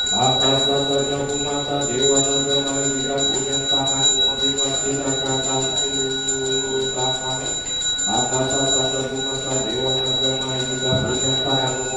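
A male voice chants a mantra in long, drawn-out sung phrases, with a small hand bell ringing steadily behind it.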